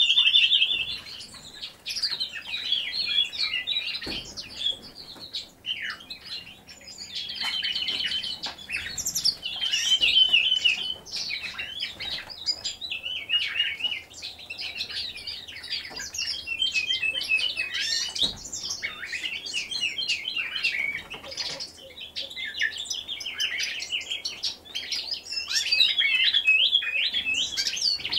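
A songbird singing a long, rambling run of rapid chirps and trills, in phrases a few seconds long with short breaks between.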